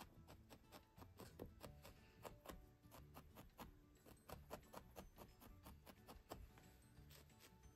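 Faint, quick clicks of a felting needle jabbing repeatedly into wool on a felting pad, irregular at about four to six strokes a second.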